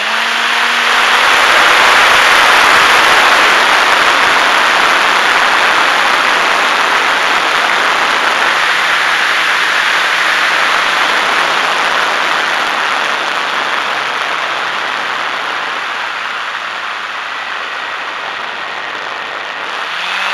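Air rushing loudly over the onboard camera of a HobbyZone Super Cub RC plane diving steeply with its electric motor throttled off, strongest a couple of seconds in and easing slowly. Near the end the motor spools back up with a rising whine.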